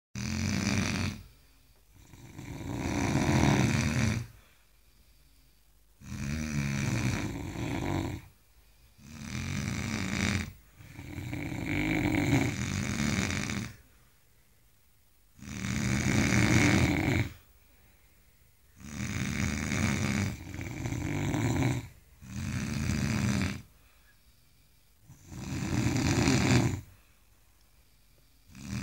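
Sleeping men snoring, one snore after another, each lasting one to three seconds with short quiet gaps between.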